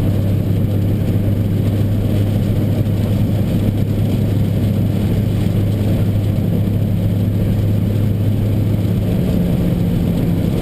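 Nissan GT-R's engine droning steadily at a constant speed, heard from inside the car, over an even hiss of rain and tyre spray from the wet track.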